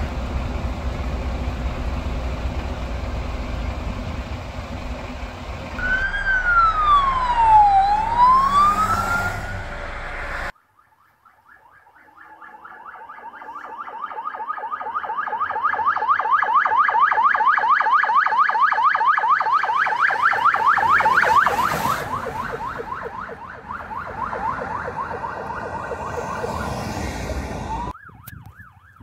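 Emergency vehicle sirens. First comes a single slow wail sweeping down and back up over a steady rumble. After a sudden cut, a fast yelping siren approaches, growing louder, passes about two-thirds of the way through and fades. Another fast siren starts near the end.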